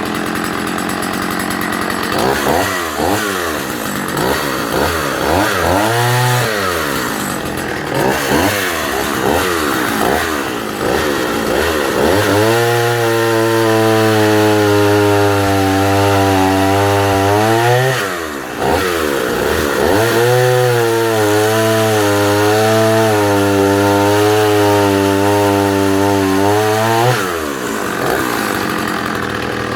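Vintage Partner F55 55cc two-stroke chainsaw revved up and down a few times, then held at high revs for two long stretches with a slight sag in pitch, as it cuts through a log, before dropping back to idle near the end.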